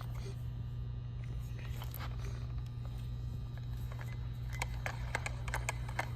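Scattered light clicks and taps of a wrench tool working the nuts on a hub motor's cassette, more frequent near the end, over a steady low hum.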